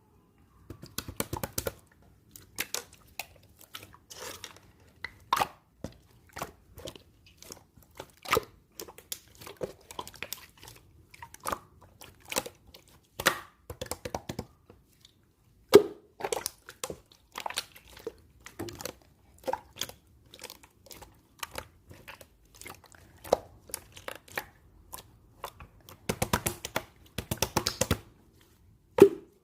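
Clear slime being squished and stretched by hand, making irregular sharp clicks and pops. There are denser runs of clicking near the start and again near the end.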